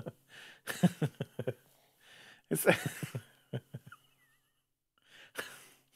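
A man laughing quietly in short breathy bursts of stifled giggles, with pauses between them and a breath near the end.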